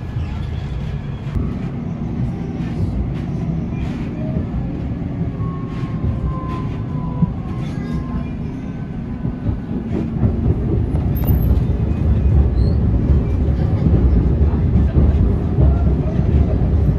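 Tram running, heard from inside the car: a steady low rumble of wheels on rails with occasional clicks, growing louder about ten seconds in.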